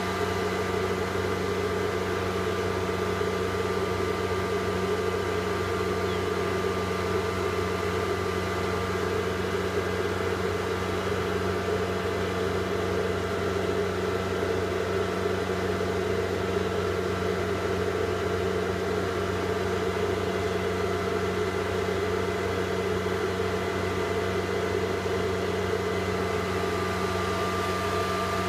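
High-speed cooling fan of an iBeLink ASIC Dash miner running at full speed, quite loud: a steady whir with a constant multi-tone hum.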